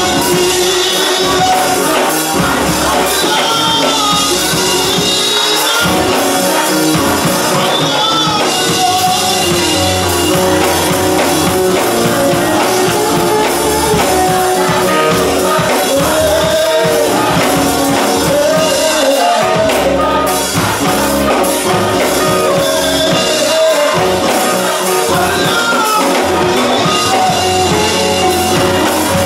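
Church choir singing a gospel song together, with instrumental backing including a steady bass line.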